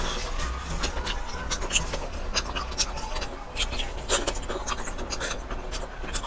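Close-miked eating sounds: wet chewing, lip smacks and squelches as red-sauced spicy food is bitten and chewed, in a quick irregular string of sharp clicks.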